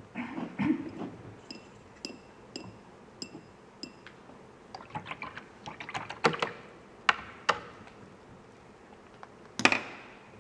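Short ringing clinks of a brush against porcelain painting dishes, with a little water sloshing. A run of six light clinks comes about a second in, then scattered clicks and taps, and a louder knock near the end.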